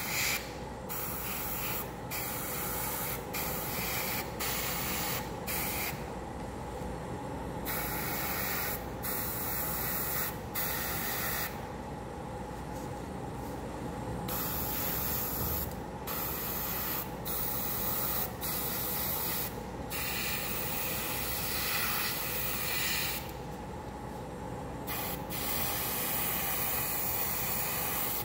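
Gravity-feed airbrush spraying black surfacer: a steady hiss that stops and starts again many times, with three longer breaks of about two seconds, over a steady low hum.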